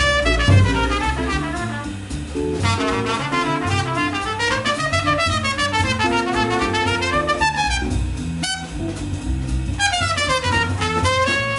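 Small jazz combo playing live: a trumpet carries the lead line, rising and falling over guitar chords, double bass and drum kit.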